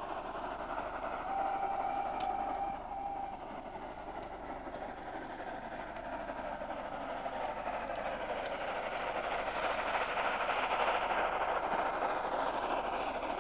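LB&SCR E1 0-6-0 tank steam locomotive working hard in the distance, its exhaust a steady rush that grows louder over the last several seconds as it comes nearer. About a second in, its whistle sounds one long note and then a short one.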